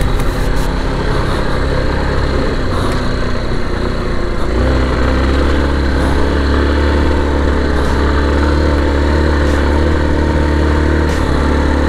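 Motorcycle engine running while riding, over a steady rush of noise; about four and a half seconds in, the engine note drops and settles into a steady low drone.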